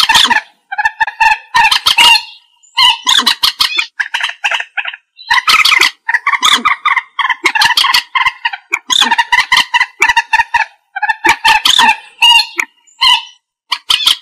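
Common moorhen calling over and over in loud, harsh, stuttering phrases. Each phrase lasts about a second, with short breaks between them.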